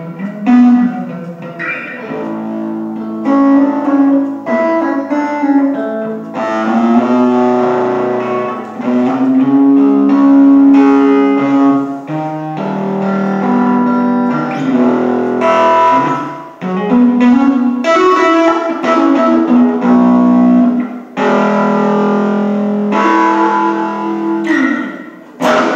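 Solo electric guitar played through a small combo practice amp, jamming freely: a stream of picked notes, some held for a second or more, with a last note struck near the end.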